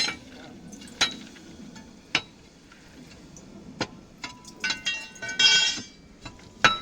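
Metal tools striking and clinking on steel rail during track welding work: separate sharp ringing blows at first, then a quick cluster of clinks, a short rasp, and one last blow near the end.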